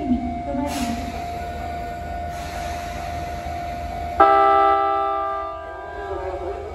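Sotetsu Line electric train's horn sounding one blast of about a second and a half, about four seconds in, starting suddenly and fading away; a courtesy toot from the driver answering the cheering sign.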